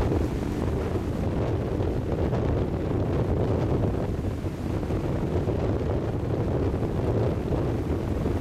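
Wind buffeting the camera microphone in a steady low rumble, over small waves washing in and out on a sandy shore.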